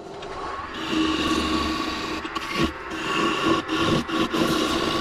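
Grizzly Pro curved skew chisel cutting a spinning oak spindle on a wood lathe. The scraping shave of wood comes in about a second in and carries on with several brief breaks.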